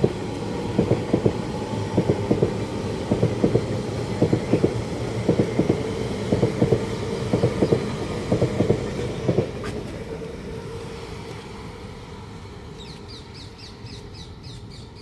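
A passing train on the main line, its wheels clicking in pairs over the rail joints in a steady rhythm over a low rumble, then fading away as it moves off. Near the end a bird chirps rapidly.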